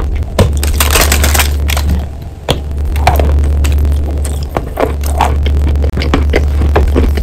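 A mouthful of lump chalk being chewed close to the microphone: rapid irregular crunching and cracking, densest about a second in, over a steady low hum.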